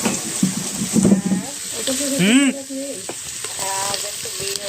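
Onions sizzling as they fry in hot oil, stirred and scraped around the pan, a steady hiss broken by short scrapes. A voice calls out briefly about two seconds in.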